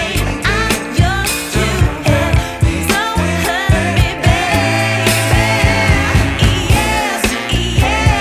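Background pop music: a sung vocal over a steady beat.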